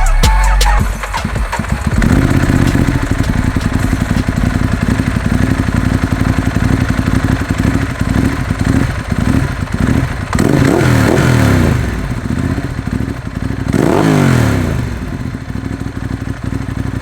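Ducati Hypermotard's V-twin through an aftermarket Termignoni exhaust, running at a fast, pulsing idle. It is blipped twice, about ten seconds in and again about three seconds later, each rev rising and falling back in pitch.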